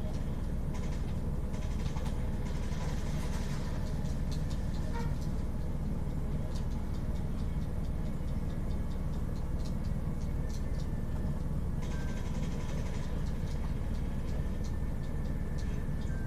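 A steady low machine hum, with faint light ticks scattered through it.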